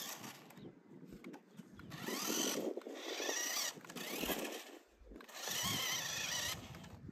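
Toy RC rock-crawler truck's small electric motor and gearbox whining in several bursts of throttle as it drives over sand, the pitch wavering as it speeds up and slows.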